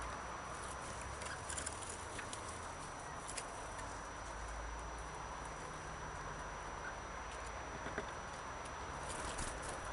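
Quiet outdoor garden ambience: a steady background hiss and low rumble, with a few faint, short high-pitched ticks scattered through.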